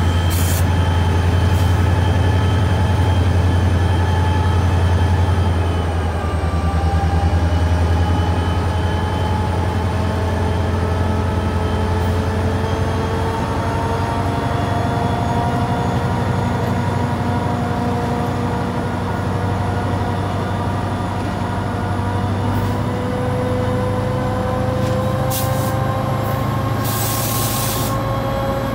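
Reading & Northern GP39RN 2,500 hp diesel locomotive running, a steady deep engine rumble with several whining tones above it that drift slowly in pitch. A short burst of hissing air comes near the end.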